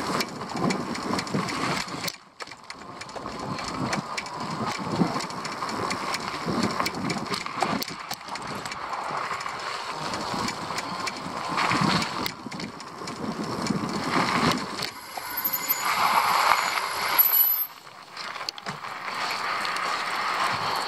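Rattling and tyre noise of a small vehicle ridden over a rough concrete path, with a brief thin high squeal about fifteen seconds in.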